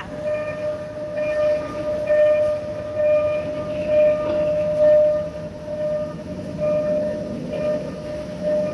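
An electronic warning tone pulsing steadily about once a second, typical of a level-crossing signal. Under it is the low rumble of a train rolling slowly past: the unfired steam locomotive No. 165 being towed by a diesel.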